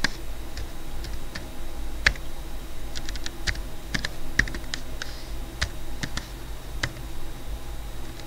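Typing on a computer keyboard: irregular key clicks, a few at a time with short pauses, over a steady low hum.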